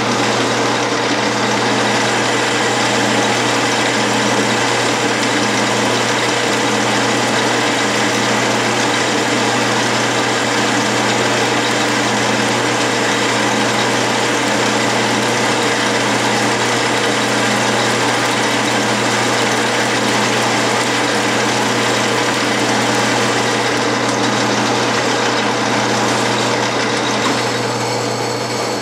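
Clausing metalworking lathe running steadily with an insert boring bar taking the last boring pass through an aluminum ring: a steady motor and spindle hum with a hiss of cutting over it.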